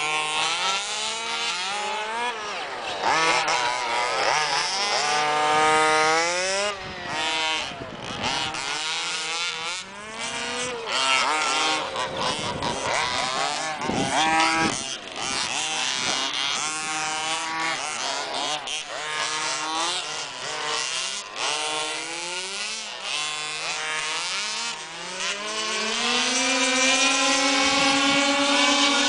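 Several large-scale petrol RC buggies racing together, their small two-stroke engines buzzing and revving, with many overlapping tones rising and falling as the cars accelerate, brake for corners and pass by.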